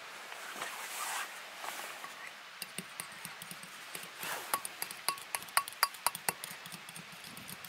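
A metal fork whisking egg yolks and oil in a ceramic bowl, clinking quickly and unevenly against the bowl from about two and a half seconds in.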